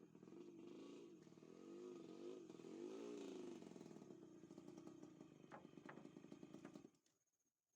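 A faint engine running, its pitch wavering up and down as if revving, that stops suddenly about seven seconds in.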